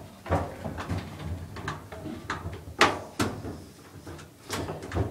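A series of sharp clicks and knocks from plastic and metal dryer panel parts being handled and pried at while the blower cover is worked loose, with the loudest knock near the middle.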